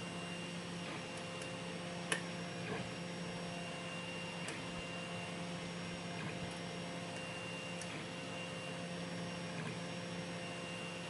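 A 3D printer running steadily, its stepper motors giving a constant hum with several held tones. A few light, sharp clicks sound over it, the clearest about two seconds in, from the pick working the pins of the lock.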